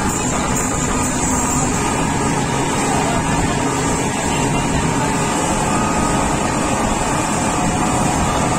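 Speedboat running steadily at speed under outboard power, its engine note mixed with the rush of water and wind past the open boat.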